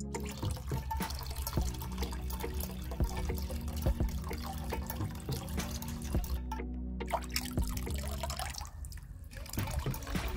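Water poured from a small cup into a plastic straw pipe, running out in a thin stream into a shallow pool of water, with many small drips and splashes.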